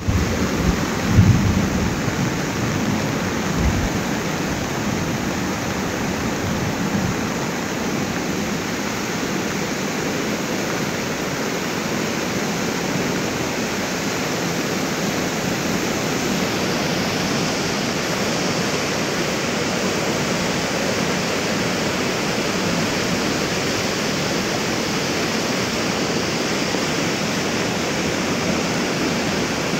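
Steady rushing of a fast, muddy river in flood. A few low thumps in the first few seconds, the loudest about a second in.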